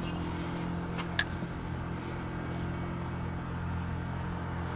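A steady low hum, with two light clicks about a second in.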